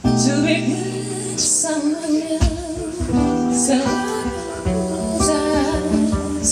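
A woman singing to her own strummed acoustic guitar in a live solo performance.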